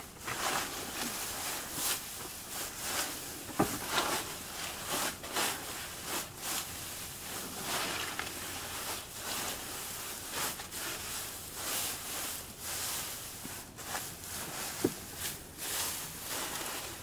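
Dry straw from a compressed bale and shredded paper rustling and crackling as they are broken apart and mixed together, in short repeated bursts about once or twice a second, with a couple of sharper clicks.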